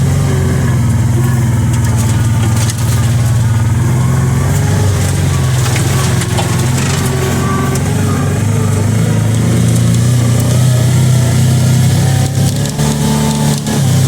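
Kawasaki Teryx 800 side-by-side's V-twin engine running steadily under throttle while driving. Its pitch wavers a little, and it eases off briefly near the end.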